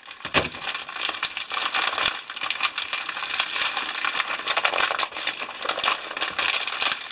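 Clear plastic packaging bag crinkling and rustling as it is opened and handled, with many small clicks and taps mixed in.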